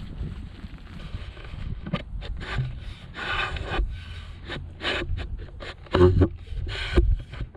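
Rubbing and rustling handling noise on a hand-held camera as it is carried along, irregular and uneven, with two heavy low thumps about six and seven seconds in.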